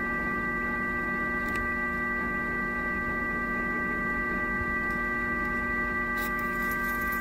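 Truck horn held down in one long, unbroken blast, a steady chord of several fixed tones, sounded by an impatient driver waiting at the crossing.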